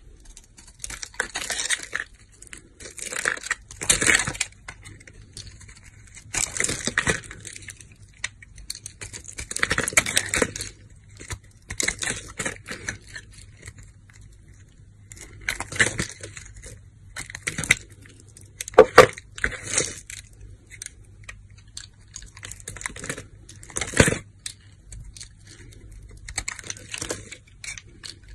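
Snap-off utility knife blade cutting and carving bars of soap: a series of short scraping cuts every one to three seconds, a few ending in a sharp snap as a chunk breaks off. A faint steady hum runs underneath.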